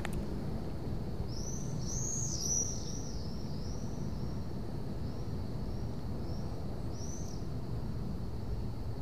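A small songbird singing a run of short, high, arched chirps that is loudest about two seconds in and trails off, over a steady low outdoor rumble.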